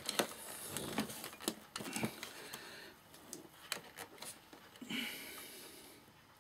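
Scattered small clicks, taps and rustles of hands working at the clips and metal parts of a stereo amplifier being dismantled, with a brief scrape near the end.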